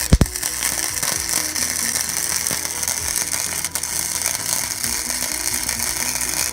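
Electric welder running a weld, likely tacking the trophy's steel parts together: a steady, dense crackle that cuts off suddenly at the end.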